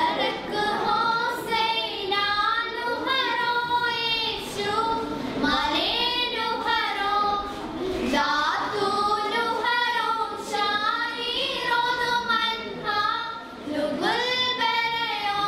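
Young girls singing together in a single melody line, with long held notes and gliding phrases, without a break.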